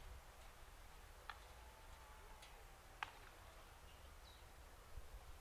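Near silence: faint open-air ballpark ambience with a low rumble and two or three faint distant sharp clicks.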